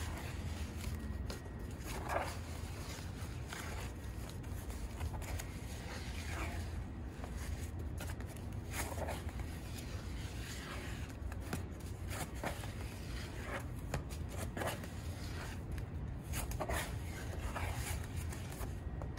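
Bondo body filler being mixed with its hardener on a sheet of cardboard: a scraper pressing and smearing the paste across the cardboard, a short scrape every second or two. A low steady hum lies underneath.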